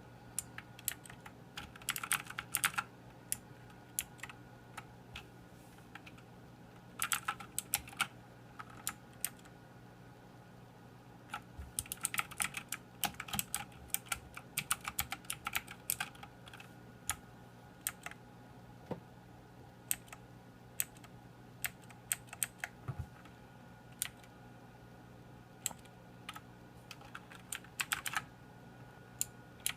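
Motospeed CK104 mechanical keyboard being typed on: runs of quick key clicks broken by pauses and single keystrokes.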